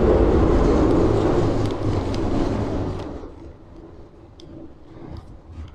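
A motor vehicle's engine running, a steady rumbling noise that fades away about three seconds in. Faint clicks and rustles follow.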